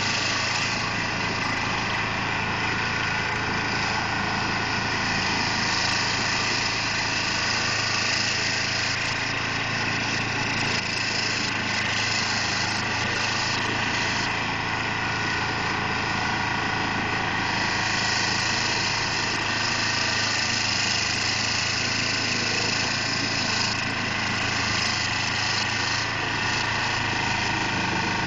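Carlton SP4012 stump grinder running steadily under power, its cutter wheel grinding into a stump, the engine note holding even with a changing grinding hiss over it.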